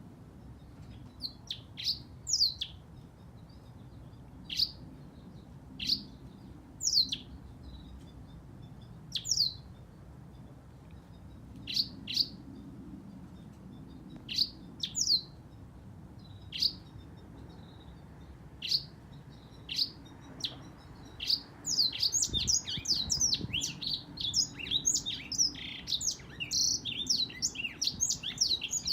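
Black-throated canary calling with short, high, sweeping notes, singly or in pairs every second or two. About twenty seconds in, it breaks into a continuous, fast twittering song.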